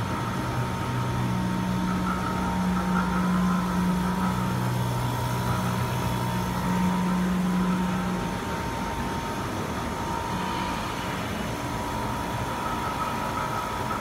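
Panasonic window-type air conditioner running: a steady rush of fan air with a low hum that fades about eight seconds in, and a faint high steady tone.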